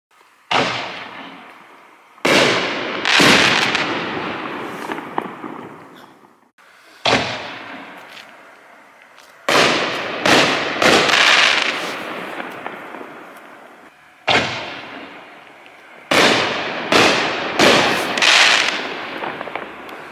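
Fox Fireworks Koto Festival 24-shot consumer fireworks cake firing: about a dozen sharp aerial bursts in irregular clusters, each fading out over a second or more.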